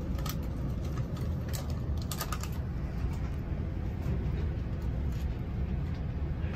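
Steady low rumble of a passenger train heard from on board, with a few faint clicks and ticks in the first few seconds.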